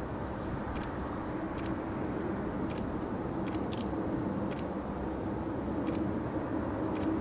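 Airbus A330-200's jet engines running, a steady distant rumble as the airliner rolls along the runway.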